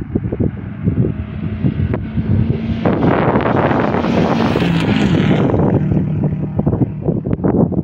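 Rally car racing past at speed on a gravel stage, its engine revving hard. It grows loud about three seconds in as it passes, then fades away. Wind buffets the microphone throughout.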